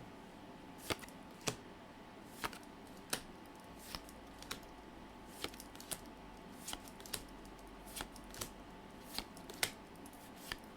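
Pokémon trading cards being handled and flipped through one by one: faint, crisp card clicks and snaps at irregular spacing, about one or two a second.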